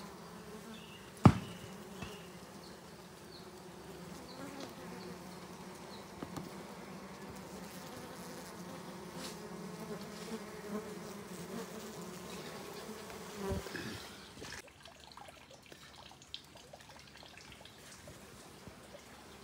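Steady buzzing hum of a dense colony of wild honeybees swarming over their exposed honeycomb. A sharp knock comes about a second in, the loudest sound, and a softer bump near the two-thirds mark; soon after, the buzzing falls away to a faint background.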